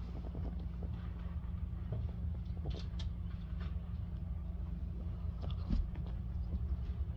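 Ferrets dooking: a soft, rapid chuckling over a steady low rumble, with scattered small clicks and taps.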